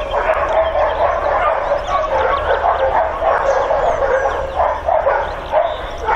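Many dogs at a boarding kennel barking at once, a continuous, overlapping chorus with no break.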